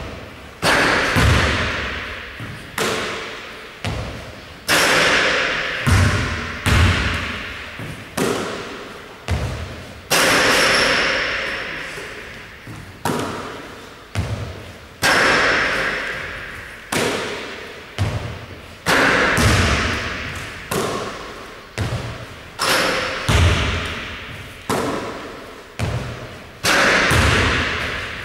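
Basketball thuds on a wooden gym floor, one every second or two, each followed by a long echo in the hall.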